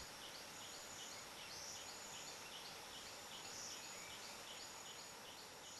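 Faint countryside ambience: insects chirping in a quick, even rhythm over a steady hiss.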